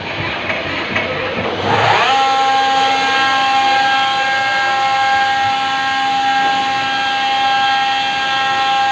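CNC lathe spindle whining. It speeds up about two seconds in and then holds one steady pitch while the component is turned.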